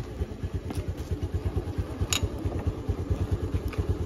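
Small petrol scooter engine running steadily with a fast, even putter, and two light clicks about one and two seconds in.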